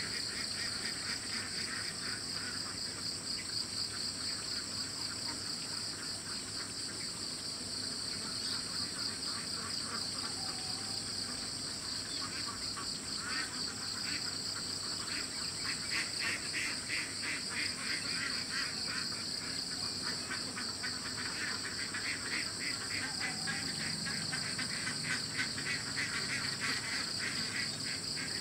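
Insect chorus at dawn: a continuous high, shrill trilling that holds steady throughout. A second, lower, rapidly pulsing chorus swells and fades, growing stronger in the second half.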